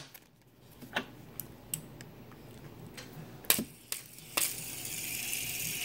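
Plastic fidget spinners being handled, with a few sharp clicks and taps. About four and a half seconds in, a steady whir starts as a spinner is set spinning in the fingers.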